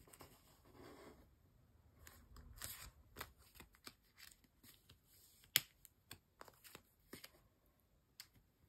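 Photocards being slid into and out of clear plastic binder sleeves: soft plastic rustling with scattered light clicks and taps, one sharper click a little past halfway.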